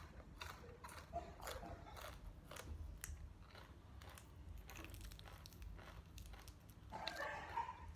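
A person eating spicy seafood papaya salad: faint, irregular chewing and crunching of food close to the microphone, with many small clicks of biting and mouth sounds.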